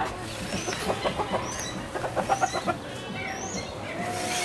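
Hens clucking in short repeated notes, with brief high chirps from other birds over them. One longer, drawn-out note comes near the end.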